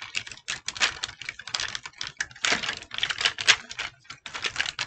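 Hard plastic parts of an Optimus Prime Transformers figure clicking and rattling as it is folded and tabbed together by hand, a quick irregular run of small clicks.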